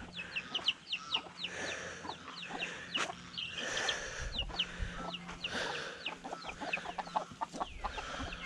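Chickens: baby chicks peeping in a steady stream of short, high, falling chirps, with hens clucking underneath.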